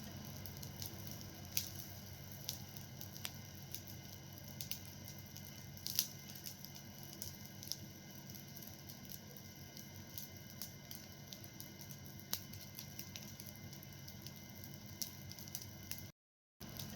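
Fire burning: irregular sharp crackles and pops over a steady low rush, with one louder pop about six seconds in. The sound drops out completely for a moment near the end.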